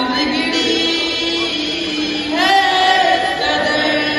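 A man singing into a microphone, long drawn-out notes that slide between pitches, with a rising slide into a wavering held note about two and a half seconds in.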